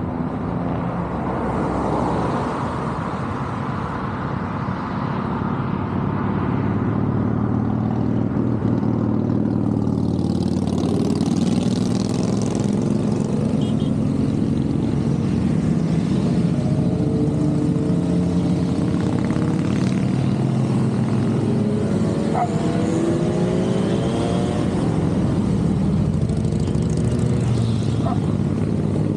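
A continuous stream of many motorcycles riding past, their engines running together in a steady drone, with a few bikes revving up in the second half.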